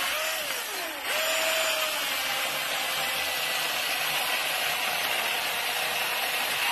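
Milwaukee M18 Fuel 16-inch brushless cordless chainsaw cutting through a log. The motor's whine drops away about half a second in, comes back up to speed about a second in, and then runs steadily as the chain cuts through the wood.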